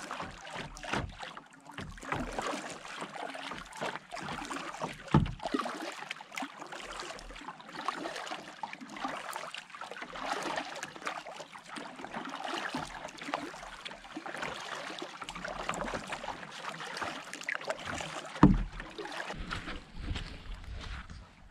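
Lake water splashing and lapping against a plastic kayak's hull as it moves through small waves, with two sharp knocks, one about five seconds in and one near the end.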